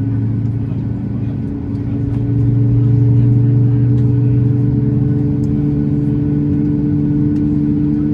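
Steady engine drone whose pitch creeps slowly upward.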